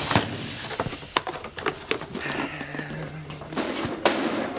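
Rustling, clicks and knocks of a cardboard box being handled and pushed into a metal cabinet. A short low steady tone is heard about halfway through.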